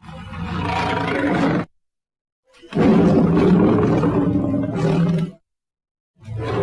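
Cartoon alligator roar sound effects: three separate low, rough roars, the first about a second and a half long, the second nearly three seconds, the third beginning near the end, with dead silence between them.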